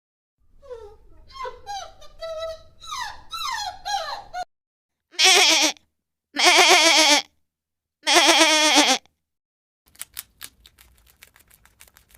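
A quick run of short, high, falling peeping calls for about four seconds. Then three loud, long bleats with a wavering pitch, each about a second long, from a goat or sheep. Faint scattered clicks follow near the end.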